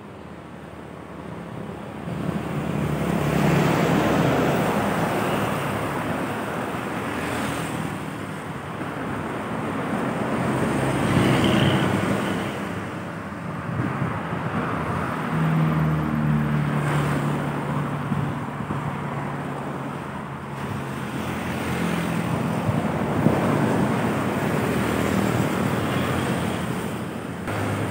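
Road traffic passing close by: buses, trucks, cars and motorcycles driving past one after another. Engine drone and tyre noise swell and fade as each vehicle goes by, loudest about four seconds in, near the middle, and again in the second half.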